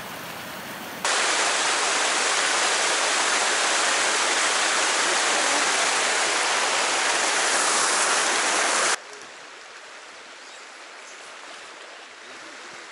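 Rushing water of a rocky mountain stream, a steady loud hiss. It comes in abruptly about a second in and cuts off about nine seconds in, leaving a much fainter flow of water.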